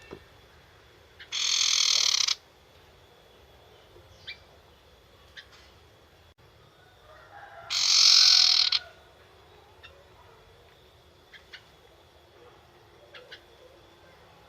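A young wild-caught sirtu bird giving two harsh, rasping chatter calls, its 'nyetater' call, each about a second long and some six seconds apart. A few faint ticks fall between them.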